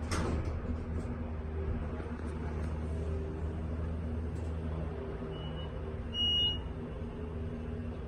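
Elevator car travelling with a steady low hum, and a short electronic beep about six seconds in, the elevator's floor or arrival signal.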